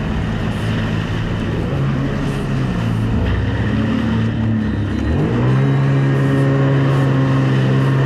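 Sea-Doo jet ski engine running over rushing water. About five seconds in it revs up in a quick rising whine, then holds steady at higher revs.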